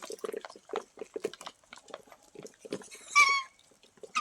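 Chickens pecking at feed, a rapid scatter of short taps, with one loud chicken squawk about three seconds in.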